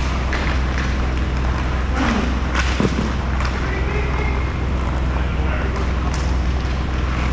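Roller hockey play in a big rink: a steady low hum under a noisy haze, with a few sharp clacks and short shouts from players about two to three seconds in.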